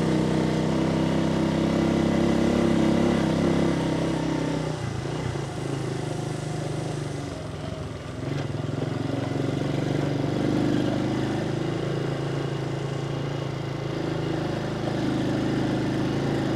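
Small motorcycle engine running at a steady pitch. It drops and fades from about four seconds in as the throttle eases, then picks back up around eight seconds and runs steadily again.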